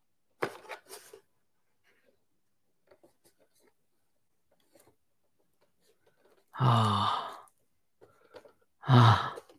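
Cardboard figure packaging crackling and clicking as it is handled in the first second, with a few faint ticks after. About seven seconds in, a man lets out a long sigh of excitement falling in pitch, and another short one just before the end.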